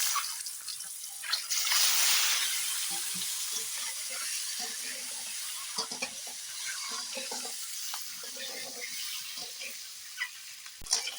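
Peeled boiled eggs frying in hot spiced oil in a kadai: a loud sizzle in the first couple of seconds that settles into a steady, slowly fading sizzle with light crackles.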